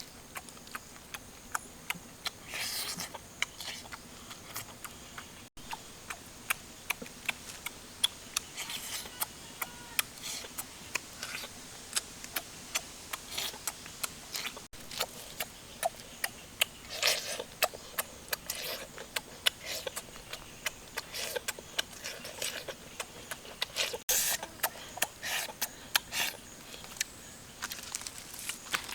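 Close-up eating sounds: frequent sharp, irregular clicks and smacks of chewing and handling cooked fish, with brief rustling in between.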